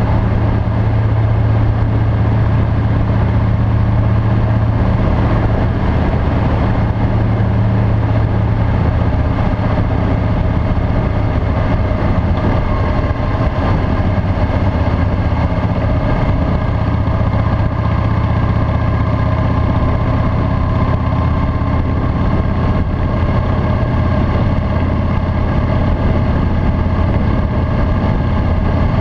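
Harley-Davidson V-twin motorcycle engine running steadily at cruising speed, with wind and road noise.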